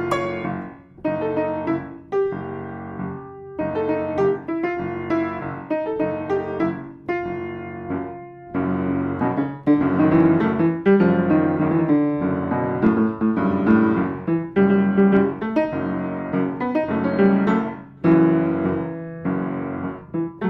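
Solo piano music: struck chords and a melody, played more fully and loudly from about halfway through.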